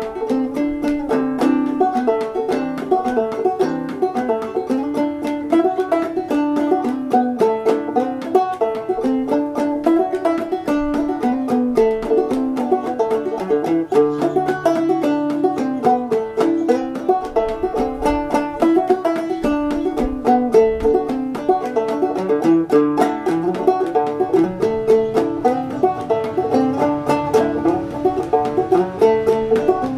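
Solo banjo played clawhammer style: an old-time fiddle tune picked as a quick, steady run of plucked notes and brushed strums.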